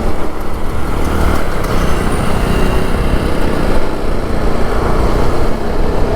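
Motorcycle riding at speed: the TVS Apache RR 310's single-cylinder engine running under steady wind rush over the rider's microphone.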